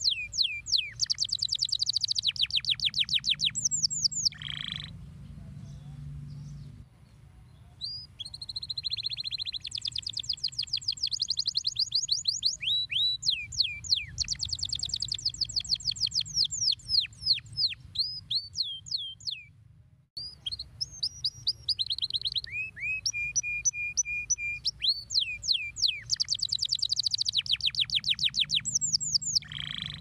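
Domestic canary singing a long song of rapid trills and fast downward-sweeping notes, broken by two short pauses, one a few seconds in and one past the middle. A low steady hum lies beneath.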